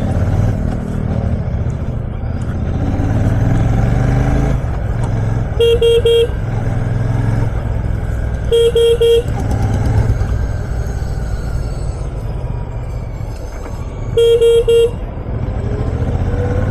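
A vehicle horn sounds three times, each time a quick burst of two or three toots, over a steady low rumble of traffic and a Royal Enfield Shotgun 650's engine crawling in a jam.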